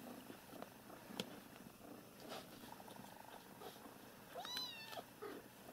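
A kitten gives a single short mew that rises and falls in pitch, about four and a half seconds in, among faint small clicks and rustles.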